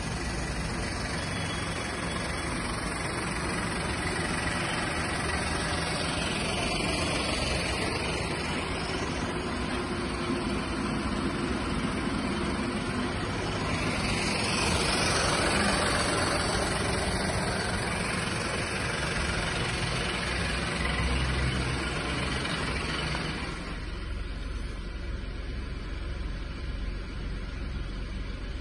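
Mini Cooper engine idling steadily while it takes an engine carbon-cleaning treatment through hoses from the cleaning machine. About three-quarters of the way through it turns duller and quieter, heard from inside the car's cabin.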